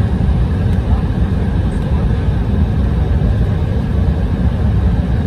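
Steady low rumble in an airliner cabin as the plane rolls along the concrete runway after landing.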